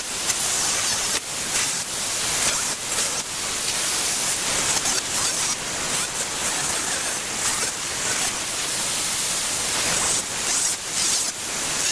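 Electric angle grinder with a thin abrasive disc grinding metal, a continuous hissing scream that dips and swells as the disc bites into the workpiece and eases off.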